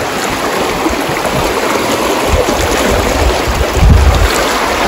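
Fast mountain creek rushing over rocks, a steady hiss of flowing water. From about two seconds in there is low rumbling on the microphone, loudest near four seconds.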